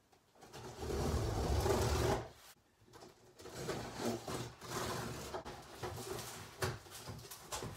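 Packing tape on a large cardboard box being slit open with a blade in one long scraping pass, then the cardboard flaps being pulled apart with irregular rustling and knocks.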